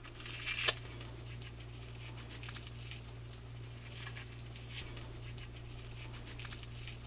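Fingers picking and pulling at the silk fibres of a Cecropia moth cocoon, a faint rustling and scratching that is loudest in the first second. A steady low hum runs underneath.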